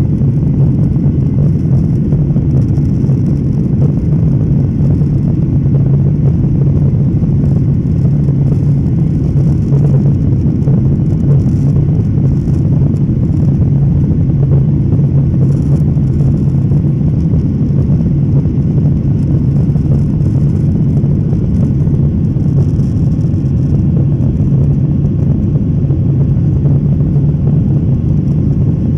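Steady drone of a jet airliner's engines and rushing air, heard inside the cabin from a seat over the wing during the climb after takeoff, with a strong low hum.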